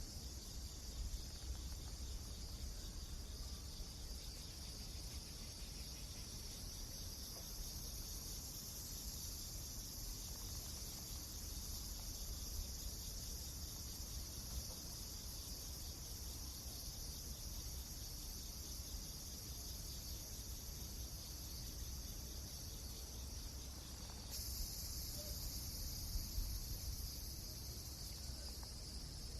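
Steady high-pitched insect chorus over a low rumble, with a few faint crackles of a wood fire; the insect sound changes abruptly about 24 seconds in.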